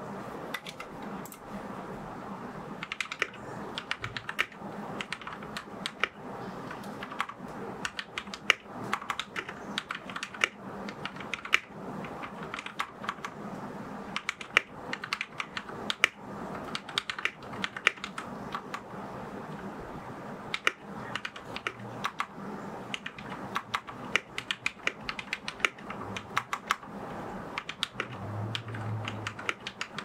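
Fast, continuous typing on a Royal Kludge RK71 mechanical keyboard: a dense run of keystroke clacks, some much louder than the rest.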